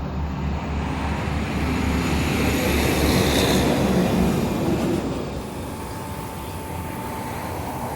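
A big truck passing by: a broad rumble that swells to a peak about halfway through and then fades away, over a steady low hum.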